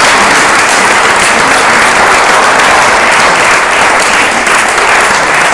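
An audience applauding: dense, steady clapping at an even level.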